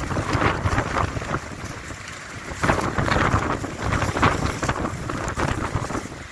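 Strong gusty wind buffeting the microphone in a storm, rumbling and surging; it eases briefly about two seconds in, then gusts hard again.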